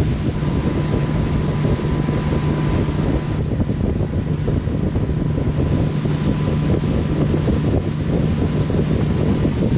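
Boat engine running steadily with a constant low hum, under heavy wind buffeting the microphone as the boat moves.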